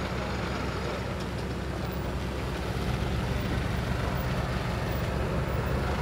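Caterpillar hydraulic excavator's diesel engine running steadily under load as it hoists a pickup truck out of the river on a cable, growing a little louder about halfway through.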